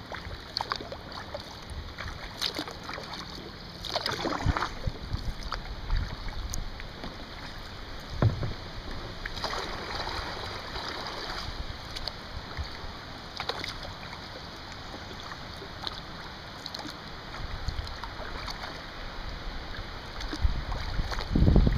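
Kayak paddle strokes dipping and splashing in river water, coming at an irregular pace of one every second or few, over the steady wash of water along the hull. A low rumble swells up near the end.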